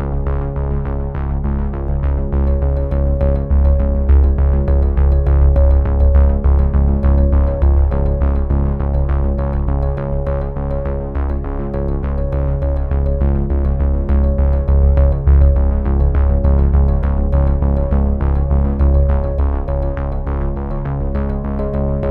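Background music: a synthesizer tune with a steady beat and a bass line.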